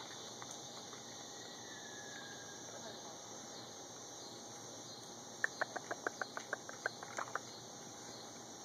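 Raccoons feeding at a plastic food tray: a quick run of about a dozen light clicks, roughly six a second, in the second half. A steady high chorus of crickets runs underneath.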